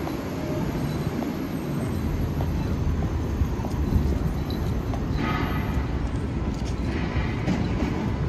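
Steady rumble of city street traffic, with two brief higher-pitched sounds about five and seven seconds in.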